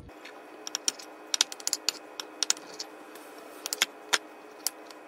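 Knife clicking against a glass dish while slicing raw beef kidneys into chunks: irregular sharp clicks, sometimes a few in quick succession, over a faint steady hum.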